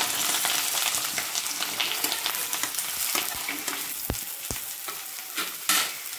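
Raw potato sticks sizzling in hot oil in a steel kadai, just added to start frying; the sizzle eases a little as it settles. Two soft knocks come a little past halfway.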